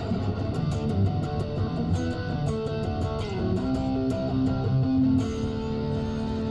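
American-made Fender Thinline Telecaster electric guitar being played: a run of picked notes and chord changes, then a chord struck about five seconds in and left to ring.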